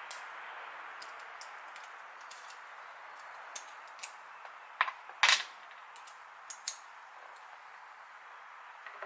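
Small screwdriver prying at the metal spring clip on a gas spring mount: scattered sharp metallic clicks and snaps, the loudest a quick double snap about five seconds in, over a steady background hiss.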